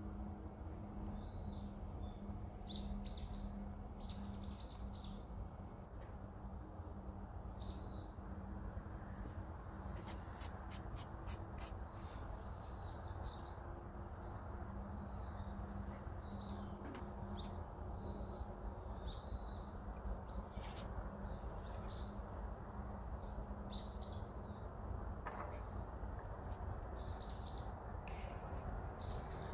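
Insects chirping in an even, fast-repeating rhythm, with birds chirping now and then over a low steady hum.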